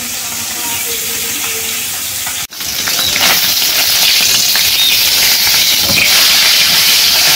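Fish pieces frying in hot oil in a karahi on a gas burner: a continuous sizzle that cuts out for an instant about two and a half seconds in, then comes back louder, with a metal spatula stirring and turning the fish in the pan.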